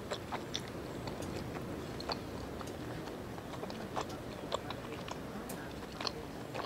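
A person chewing a mouthful of lechon paksiw (braised roast pork) and rice close to the microphone, with many small wet mouth clicks scattered throughout.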